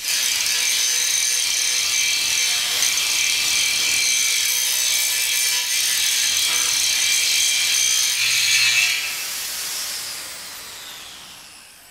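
Right-angle grinder with a 7 mm grinding wheel grinding a weld bead flush on a steel tank, a steady, loud grind. It fades away over the last few seconds.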